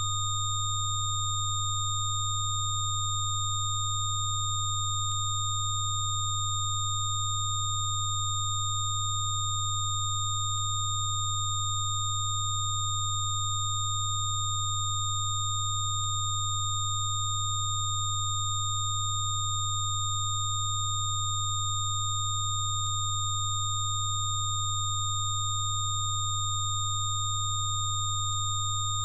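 Electronically generated Rife-frequency sine tones: a loud low hum held perfectly steady, layered with several fainter higher-pitched tones, with no change in pitch or loudness.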